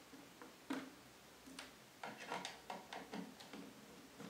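Small clicks and scrapes of a hand screwdriver undoing the screws on a controller box's panel to open it: one sharp click under a second in, then a quick run of clicks and scrapes from about two to three and a half seconds in.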